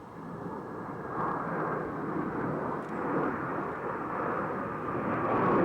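Blue Angels F/A-18 Hornet jet noise swelling steadily louder as the aircraft approach, with a faint turbine whine that slowly falls in pitch.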